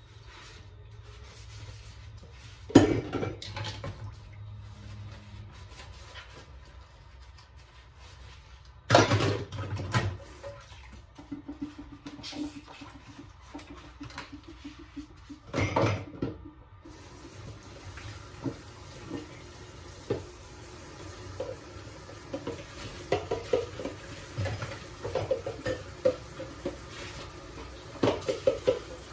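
Dishes and cutlery clattering during hand washing-up at a kitchen sink and plastic dish drainer. Loud clatters come about three seconds in, about nine seconds in and near sixteen seconds, then a run of lighter clinks and knocks.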